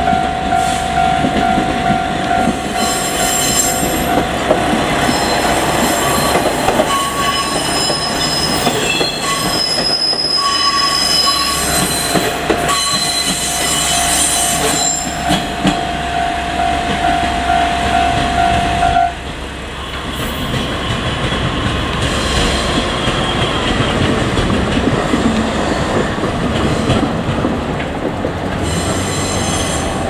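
Two-car JR Kyushu KiHa 47 diesel railcar set rolling slowly through yard trackwork, its diesel engines running, with high wheel squeals coming and going. A level-crossing warning bell rings steadily and stops about two-thirds of the way through.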